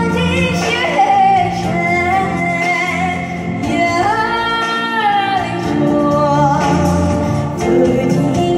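A young female voice singing a Chinese song with long held notes into a handheld microphone, over a recorded backing track played through a PA speaker.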